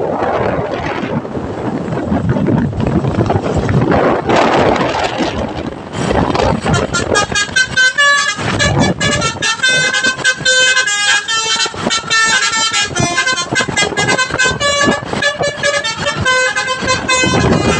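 Indonesian bus with engine and road noise, then from about six seconds in its telolet basuri musical horn plays a quick melody of short tooting notes.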